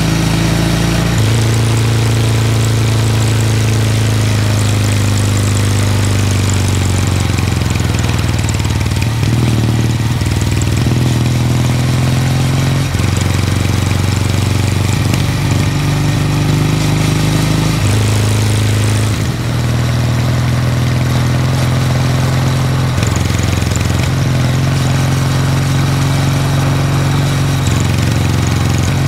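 Kawasaki W800 Street's air-cooled parallel-twin engine running under way. Its note steps up and down in pitch several times as the bike shifts gears and rolls on and off the throttle, over a steady rush of air and road noise.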